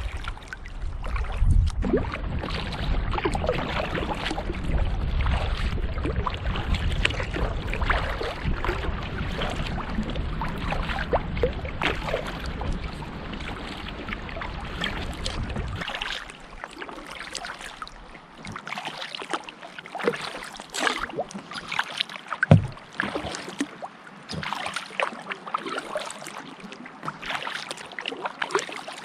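Kayak paddle strokes splashing and water slapping against the hull in choppy water, at an irregular pace. A low rumble underneath stops abruptly about halfway through, and one sharp knock stands out about two-thirds of the way in.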